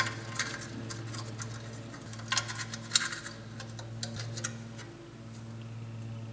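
Light metallic clicks and scrapes of hand tools working the rear emergency brake shoe retaining clip and pin hardware. The clicks are scattered, with a cluster of sharper ones between about two and three seconds in, over a steady low hum.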